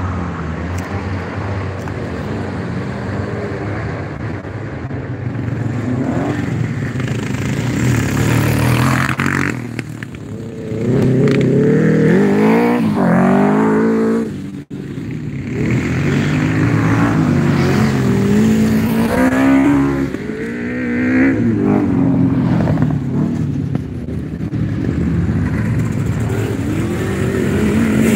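Sidecar motocross outfits racing on a dirt track, their engines revving up and falling away in pitch as they accelerate out of corners and change gear, with several passes swelling loudest around the middle. The sound cuts out for a split second about halfway through.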